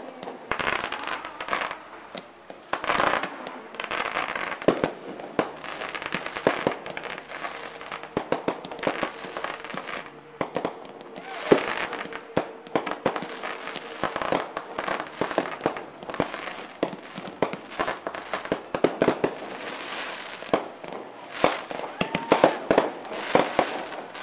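Aerial fireworks display: a dense, irregular string of bangs and crackling from bursting shells, with the sharpest report about eleven seconds in.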